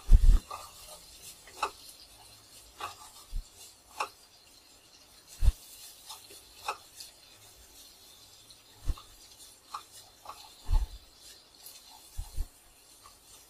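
Wooden spatula scraping and knocking against a frying pan as cut drumstick pieces are stirred and turned, in irregular strokes with a few louder knocks.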